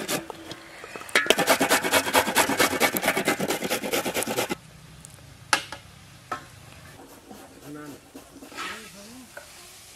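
Vegetables shredded on a flat metal hand grater: a fast, even run of scraping strokes for about three seconds that stops abruptly. A single sharp knock follows about five and a half seconds in.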